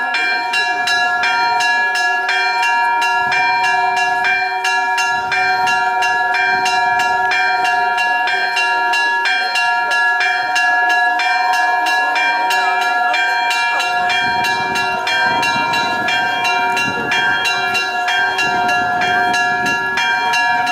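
Orthodox church bells ringing a continuous rapid peal: several bells of different pitch struck over and over, many strikes a second, with their tones ringing on between strikes.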